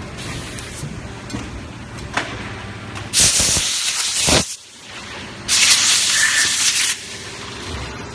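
Silicone (LSR) molding machine running with a steady low hum. Two loud bursts of hissing air come about three and five and a half seconds in, each lasting a second or more.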